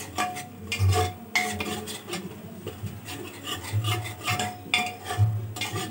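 A ladle scraping and stirring onion-tomato masala around the bottom of an aluminium pressure cooker in irregular strokes, with a few light knocks against the pot, as the masala is fried down (bhuna).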